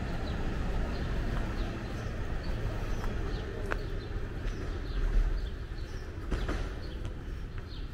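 Steady low rumble of a Brighton Line subway train running on the tracks, with a couple of sharp clicks, while small birds chirp over it.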